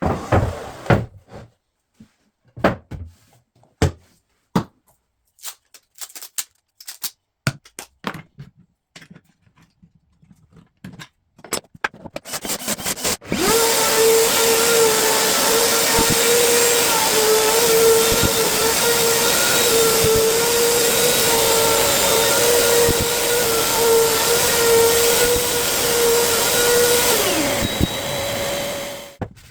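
A series of sharp clicks and knocks, then a router starts about 13 seconds in and runs at a steady high whine. It is driving a Freud surfacing bit to flatten an end-grain cutting board. Near the end the motor is switched off and the whine falls away as it spins down.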